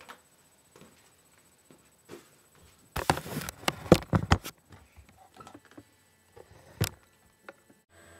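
Handling noise from the camera being picked up and moved against clothing: loud rustling and knocks for about a second and a half a few seconds in, with scattered small clicks and one sharp click around them. The sound cuts off abruptly just before the end.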